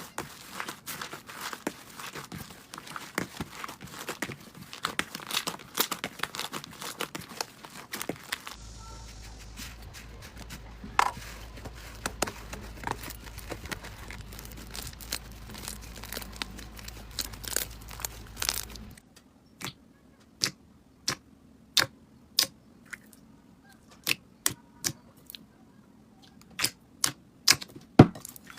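Slime being played with by hand: a dense run of small crackles and pops, then, about two-thirds of the way in, sparser single sharp pops and clicks.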